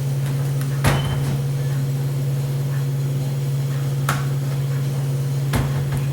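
Three sharp clicks of small hard parts being handled while laptop screen-bezel screws are taken out with a screwdriver, the first the loudest, over a steady low hum.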